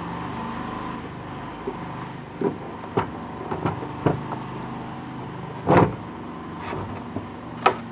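Handling noise from car parts being worked by hand: a handful of light clicks and knocks, with one louder knock about three-quarters through, over a steady low hum.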